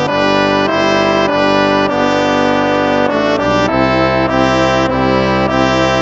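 Instrumental hymn music on brass instruments, playing slow held chords that change every second or so.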